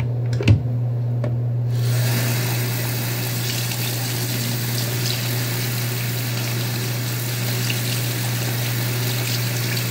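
Water running from a bathroom tap, starting about two seconds in and then running steadily. A steady low hum lies under it, with a short knock just before the water starts.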